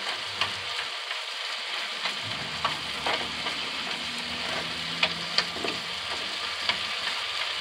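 Lean beef sizzling in a skillet as it browns, a steady frying hiss with scattered sharp pops.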